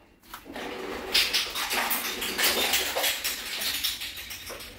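Rapid scratchy clicking and scraping of a screw being driven by hand into a metal slide-bolt latch on a wooden door. It starts a moment in and eases off near the end.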